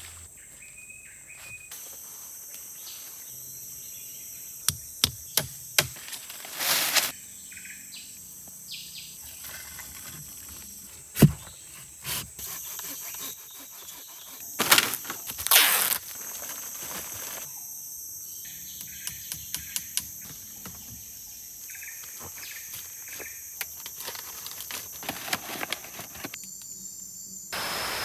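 Tropical rainforest ambience: a steady high drone of insects with occasional bird chirps. It is broken by a few sharp knocks and short rustling bursts, the loudest knock about eleven seconds in.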